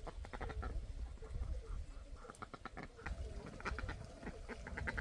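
Ducks quacking in several quick runs of short calls, over a low rumble.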